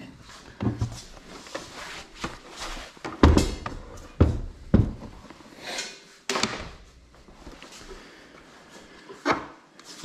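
Plastic parts of a MotorGuide Xi3 trolling motor being flipped over and handled on a wooden workbench: about half a dozen knocks and bumps, with scraping and rubbing between them.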